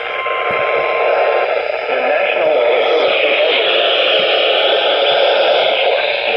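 Steady radio static hiss from a weather radio receiver with no voice coming through, plus a faint steady tone near 1 kHz that stops about a second and a half in.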